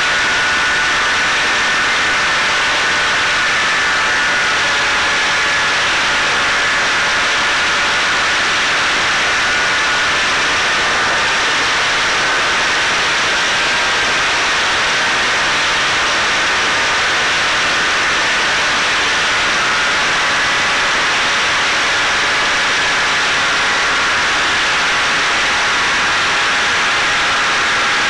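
Electric motor and pusher propeller of a Caipirinha 2 flying-wing drone in cruise, heard from its onboard camera: a steady whine of a few close tones that drift slightly in pitch, over heavy wind rush.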